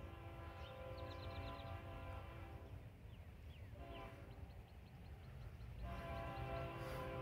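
Horn of the approaching BNSF geometry train's lead locomotive, still out of sight, sounding three blasts: a long one ending about a third of the way in, a short one just past the middle, and another long one starting near the end, the long-short-long close of a grade-crossing signal. A low steady rumble runs underneath.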